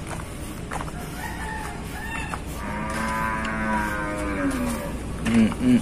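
A cow mooing: one long call lasting a couple of seconds, falling in pitch at the end. A few short, higher animal calls come before it.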